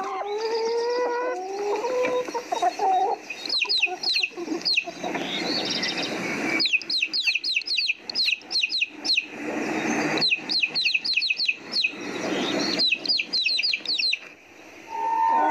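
Chickens clucking, with sliding calls at the start and, from about three and a half seconds in, repeated runs of quick, high, falling chirps over the clucking, then a brief lull near the end.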